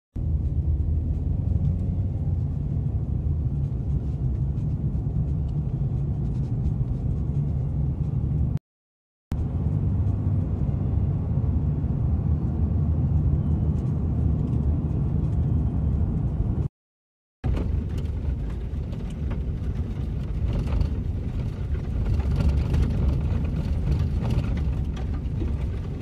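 Road noise heard inside a moving car: a steady low rumble of tyres and engine. It cuts out completely twice for under a second.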